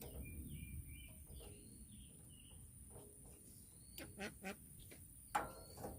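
Birds chirping faintly, with a few short, louder calls about four and five seconds in, over a low steady background rumble.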